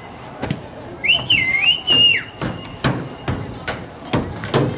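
A high whistled call that rises, dips, rises again and then falls, about a second in, followed by a run of irregular sharp knocks.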